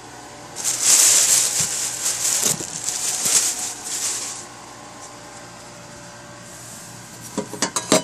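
Thin plastic bag rustling and crinkling for about four seconds, then a quick run of sharp knocks near the end.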